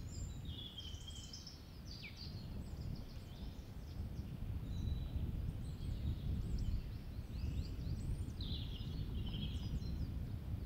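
Outdoor ambience: birds chirping and singing with many short, quick calls, over a steady low rumble.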